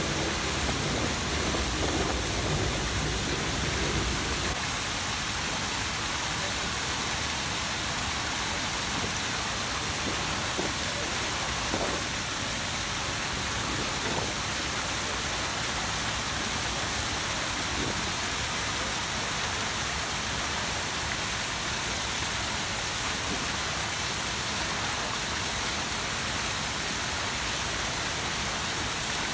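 Many fountain jets of a large cascade spraying and splashing into a pool, a dense, even hiss of falling water.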